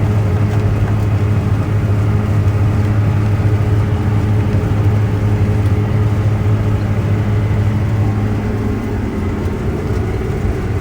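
Case IH combine harvester running steadily under load while reaping barley, a constant deep hum with machinery noise over it.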